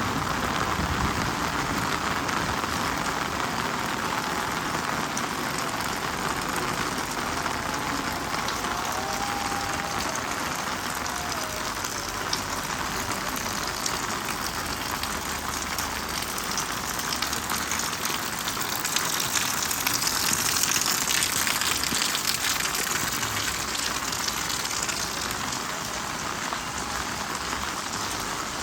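Steady heavy rain falling and pattering on surfaces, growing a little louder about two-thirds of the way through.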